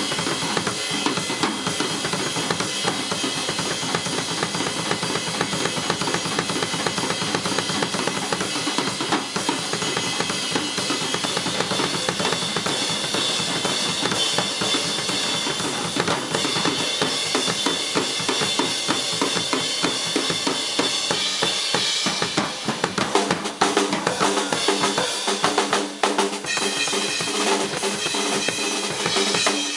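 Solo drum kit played live in fast, dense patterns of bass drum, snare and cymbals. About two-thirds of the way through, the bass drum drops back and the cymbals come forward.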